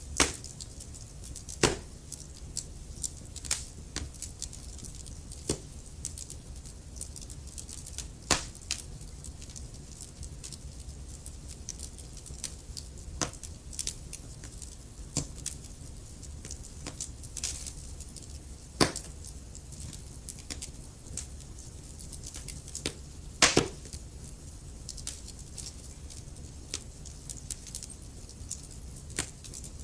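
Wood fire burning in a fireplace: irregular sharp crackles and pops from the burning logs over a steady low rumble of flame. A few pops stand out loudest, one about a second in and a double pop near the end.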